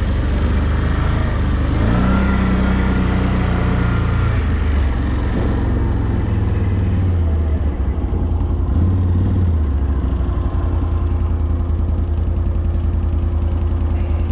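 A motor vehicle's engine running, its pitch rising and falling a few times as it is revved or driven.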